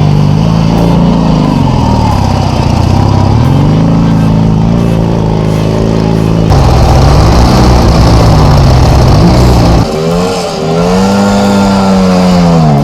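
Motorcycle engine running under hard throttle, its pitch rising and falling again and again as it is revved. It gets louder about six and a half seconds in, and near the end it revs up and back down once more.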